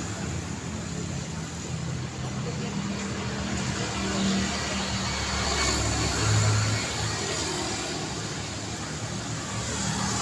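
Steady road traffic: engines and tyre noise of passing vehicles, with a low engine hum that swells and fades as vehicles go by.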